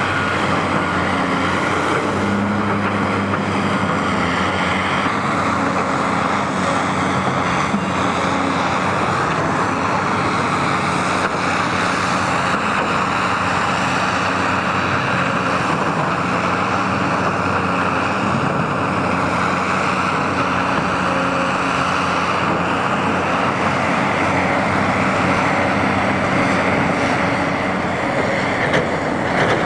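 Steady drone of a tracked demolition excavator's diesel engine running, a constant noisy rush with a low engine hum beneath it.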